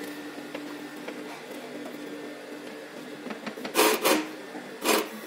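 Typical TW3-341 cylinder-arm walking-foot sewing machine humming steadily, then stitching through leather in a short burst about four seconds in and a briefer one near the end.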